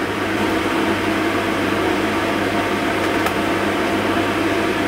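A steady machine hum and whir with a constant low tone, with a faint click about three seconds in.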